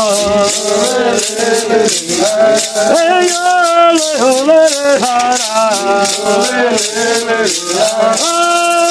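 Voices singing a chant with a maracá rattle shaken in a steady rhythm.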